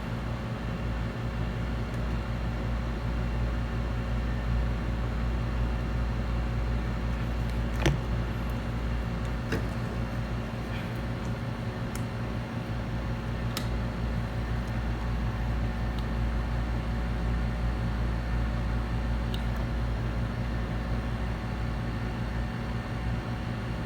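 Steady hum of a running machine with a low drone, and a few faint light clicks, the clearest about eight seconds in.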